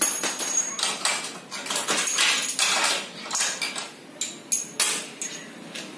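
Metal tools and bolts clinking and clattering against a metal parts tray: a rapid series of sharp clinks, some ringing briefly.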